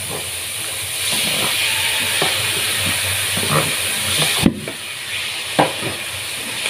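Raw chicken pieces sizzling as they go into hot oil in a wok with frying garlic, onion and chicken liver; the sizzle grows louder about a second in. A wooden spatula knocks and scrapes against the wok several times, one knock louder than the rest.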